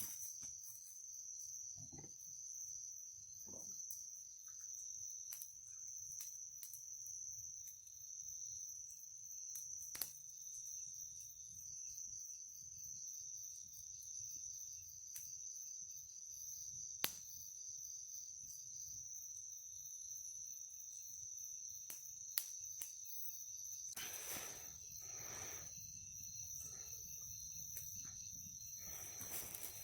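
Steady high-pitched chorus of night insects such as crickets, with a few sharp clicks scattered through it and a stretch of rustling noise near the end.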